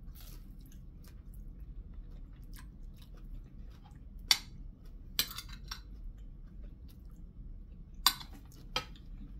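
A person chewing crispy fried lumpia (spring rolls) close to the microphone, with many small clicks and a few sharp, louder crunches, the loudest about four seconds in and again about eight seconds in.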